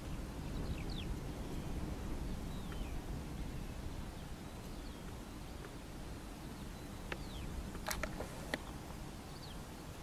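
Open-country ambience: a steady low rumble with brief, falling chirps of small birds at intervals, and a few sharp ticks about eight seconds in.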